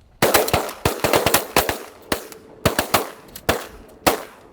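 A rapid volley of shotgun fire from several hunters shooting at once at incoming ducks: more than a dozen sharp blasts in quick clusters over about four seconds.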